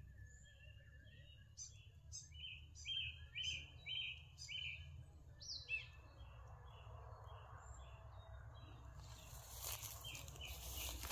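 A bird calling a quick series of short, repeated chirps, about three a second, which stop about nine seconds in. Then a broad rustling of movement through the undergrowth.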